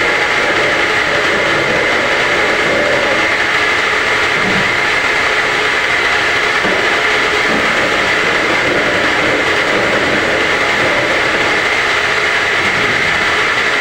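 Home-assembled round-gallon washing machine running, a steady, unbroken mechanical whirr.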